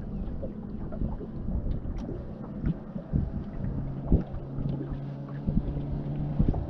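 Small waves slapping irregularly against the hull of a slowly drifting fishing boat, with wind buffeting the microphone. A steady low hum comes in about four seconds in.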